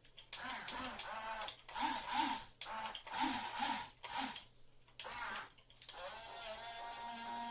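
Small electric gear motors of a toy-grade 1/14 Top Race 15-channel RC excavator whining in several short bursts, each starting and stopping as the on/off, non-proportional controls are clicked. The pitch rises and falls within each burst, and the whine runs more steadily near the end.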